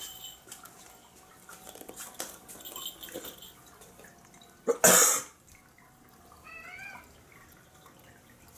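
A single short cough about five seconds in, the loudest sound. Around it are faint scattered clicks, and about a second and a half later a brief high wavering chirp.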